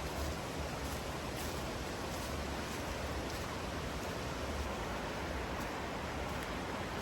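Steady rush of flowing water in a mountain gorge: an even hiss with no breaks.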